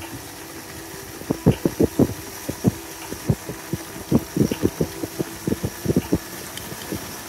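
Motorcycle running at low speed with a steady low hum. From about a second in, it is overlaid by many irregular dull thumps, some close together, some spaced out.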